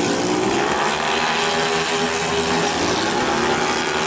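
Several racing 131cc automatic scooters running at high revs, their engine pitch climbing as they accelerate out of a corner near the start and again near the end.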